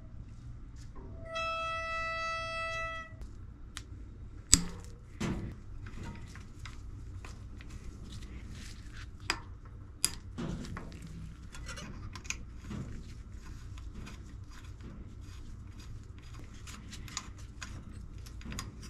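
Front disc brake squealing as the wheel turns slowly with the brake applied: one steady, high-pitched squeal of about two seconds, beginning about a second in, the low-speed squeal of an old Avid Code four-piston caliper on its rotor. Then scattered sharp clicks and small metal taps from hand work at the caliper; a sharp click a few seconds in is the loudest sound.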